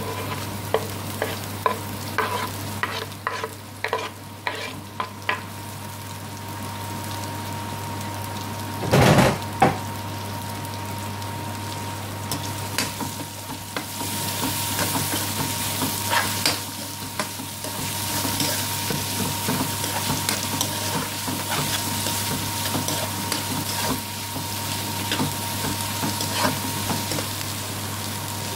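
Sliced onions dropped into hot ghee in a steel wok, clattering in at first, then sizzling as a spatula stirs them with scraping clicks against the pan. There is one loud knock about nine seconds in, and the sizzle grows denser from about halfway.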